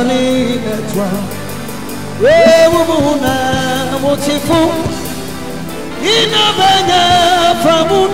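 Gospel music: a singer holding two long, wavering notes that scoop up into pitch, one about two seconds in and another about six seconds in, over a steady instrumental backing.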